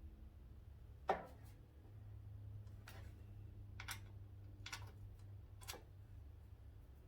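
Scattered light clicks and one sharper knock about a second in, as hand tools and fasteners are handled during motorcycle disassembly, over a low steady hum.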